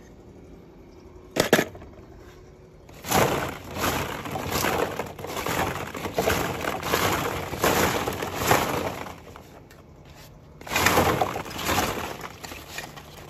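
Hard small objects clattering and rattling as they are rummaged through by hand: a sharp knock about a second and a half in, then two spells of dense clatter.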